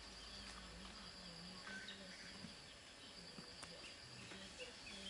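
Faint outdoor ambience: a steady high insect drone with a few scattered faint ticks.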